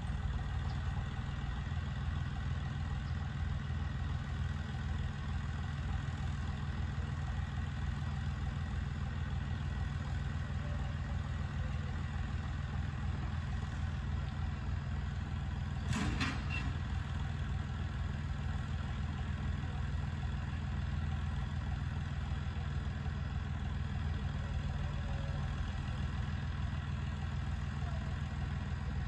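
Farm tractor engine idling steadily, with one short sharp knock about halfway through.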